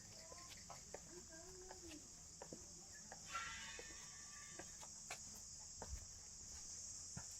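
Faint, steady high-pitched chorus of crickets, with scattered light ticks and a brief higher-pitched call a little past three seconds in.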